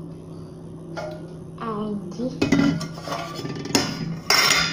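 Dishes and cutlery clattering and clinking as kitchen things are handled, with sharp knocks about halfway through and the loudest clatter near the end.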